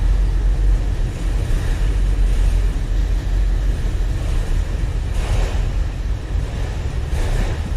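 Steady low rumble of a passing train, with wind buffeting the microphone and two gusty swishes about five and seven seconds in.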